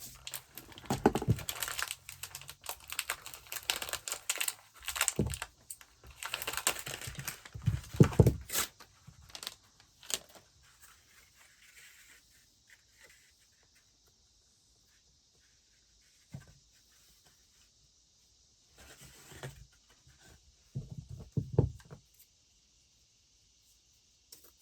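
Rustling and crinkling with light handling clicks as ribbon is wrapped and tied on a craft gift. It is busy for about the first ten seconds, then only occasional short rustles.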